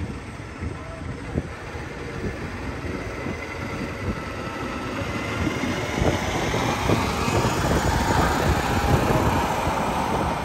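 Street traffic noise, swelling over the second half as a heavy vehicle draws near.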